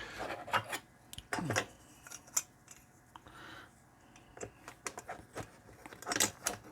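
Small metal parts and tools handled on a workbench: scattered light clicks, clinks and short scrapes, with one longer scrape about one and a half seconds in.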